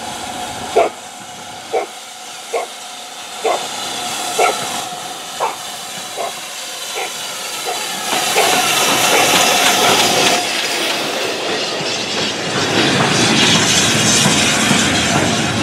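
A dog barks about once a second, the barks growing fainter and stopping about halfway through. Then BR Standard Class 5 steam locomotive No. 73082 'Camelot' and its coaches pass close by, with a hiss of steam and the clickety-clack of wheels on the rail joints, growing louder from about eight seconds in.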